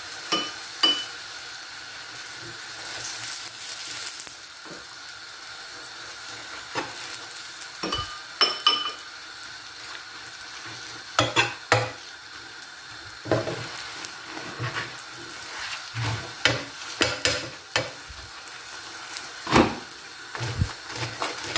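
Chapati sizzling in oil in a frying pan, with a metal spoon scraping and tapping against the pan now and then.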